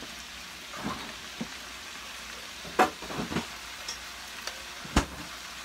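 Ground beef sizzling steadily in a skillet as it is stirred, with a few scrapes and knocks of utensils, the sharpest a single knock about five seconds in.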